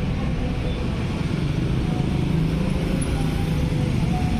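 Steady rumble of road traffic.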